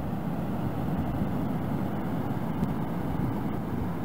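Steady low roar of steam and volcanic gas venting from Mount Bromo's crater, an even rumbling noise with no breaks.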